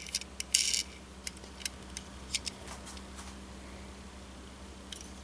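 Hard little clicks, taps and short rustles from a model airplane and its packaging being handled, most of them in the first three seconds and a couple near the end, over a low steady hum.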